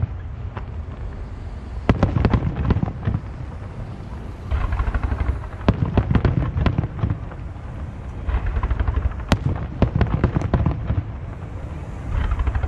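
Fireworks display: aerial shells bursting with a series of sharp bangs, a few standing out louder, mixed with stretches of rapid crackling from the stars.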